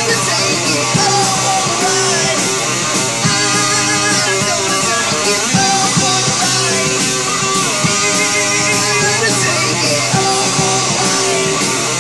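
Rock band recording: electric guitars, bass and drum kit playing a fast punk-rock song with a steady beat.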